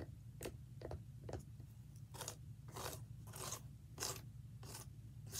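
Irregular crunchy scratching and crackling, about ten short strokes, from hands handling dry natural-wood hamster-cage décor.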